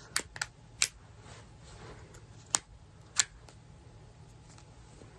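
A few short sharp clicks and taps of a small plastic slime tub and its lid being handled, spaced irregularly, over a low steady hum.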